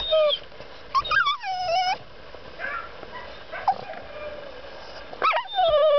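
Dog whining in high, wavering cries: a short one at the start, a longer one about a second in, faint ones in the middle, then a louder, drawn-out whine starting near the end. She is whining to be let out of the truck.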